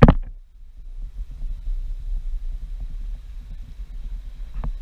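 Wind buffeting an outdoor camera microphone: a low, uneven rumble. There is a sharp knock right at the start with a brief dip after it, and a smaller knock near the end.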